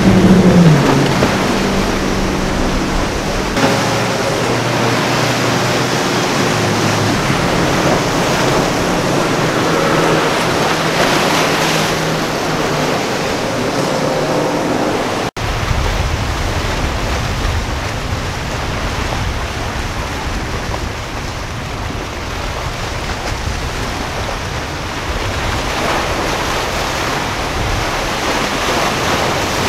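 Outboard engines of a Yellowfin center-console boat running steadily at speed, a low hum under the rush of churned water and surf. About halfway through there is a cut, after which breaking waves and wind rumbling on the microphone take over and no clear engine tone is left.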